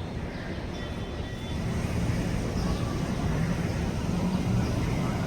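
Steady low rumble of engine-like noise, growing louder about one and a half seconds in, with faint distant voices.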